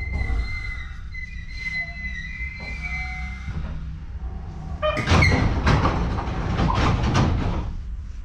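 Interior of an ex-Hankyu 3100 series electric train car standing at a station, with a low steady rumble and a high steady whine for the first few seconds. About five seconds in, the air-operated doors slide open with a loud rush of air and rattling.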